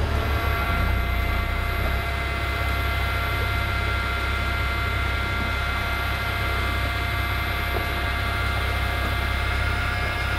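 Fishing boat's engine running steadily at idle: a constant low drone with a steady whine over it.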